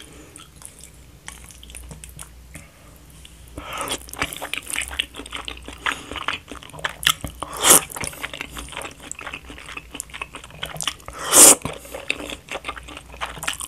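Close-miked slurping and chewing of thick, saucy stir-fried jjamppong noodles: quiet for the first few seconds, then steady wet chewing with two loud slurps, one about halfway through and one near the end.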